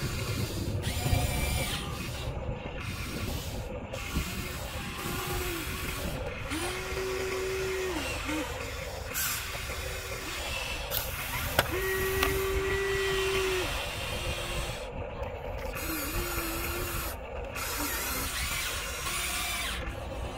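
Small electric motors of a 1/14-scale radio-controlled excavator whining in short runs, starting and stopping every few seconds as the boom and bucket move, over a steady mechanical noise.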